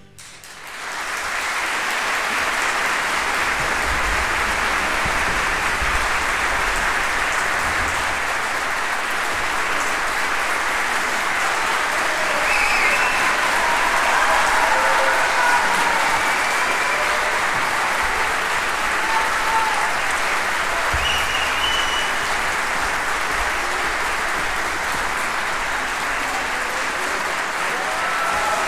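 A large concert audience applauding steadily. The applause rises within about a second as the orchestra's last chord dies away and then holds at an even level.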